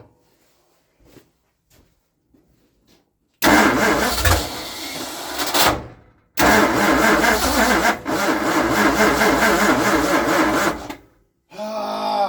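Starter cranking a tri-power Ford FE V8 in two tries, about two and a half seconds and then about four and a half seconds, without the engine catching. The battery is running down, and the first try fades as it goes.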